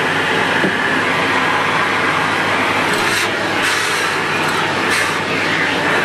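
Shark upright vacuum cleaner running with a steady whooshing hiss as its hose wand sucks at the carpet, with brief sharper hisses about three and five seconds in.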